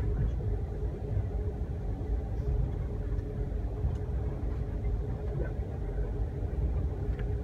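Steady low rumble of a moving passenger train heard from inside the car, with a faint steady hum over it.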